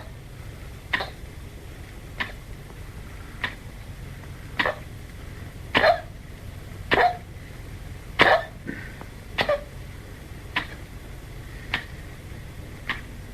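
A 15-year-old Chihuahua coughing over and over: about a dozen short coughs, roughly one a second, with the later ones fainter. This is the cough of kennel cough.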